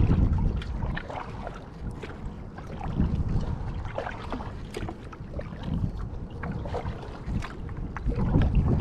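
Kayak paddle strokes: water splashing and dripping off the blade in short, irregular bursts. Low wind rumble on the microphone at the start and again near the end.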